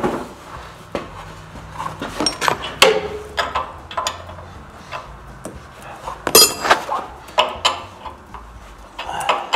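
Steel wrench clinking and tapping on steel hydraulic fittings as a feed-line fitting is threaded into the loader valve and tightened: irregular metallic clicks and knocks, the loudest a brief ringing clatter about six seconds in.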